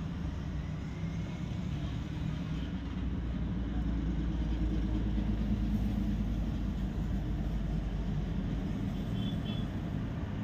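Steady low rumble of a running vehicle engine, with a faint short high beep near the end.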